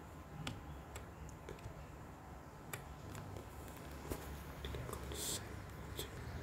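Irregular light clicks and ticks from a computer keyboard and mouse in use, over a low steady hum, with a brief hiss about five seconds in.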